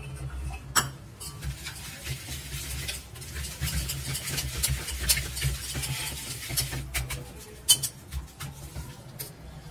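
Wire whisk stirring and scraping in a stainless steel bowl, working milk powder into a thick sugar-and-oil batter, with a few sharp clinks of the whisk against the bowl, the loudest about a second in and near eight seconds.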